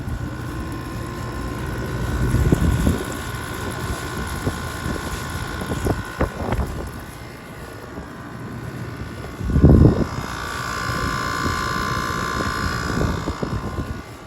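An 8,000 BTU Chill Series room air conditioner running: a steady fan and compressor hum with a whine over it. Two low thumps break in, one a couple of seconds in and a louder one about ten seconds in.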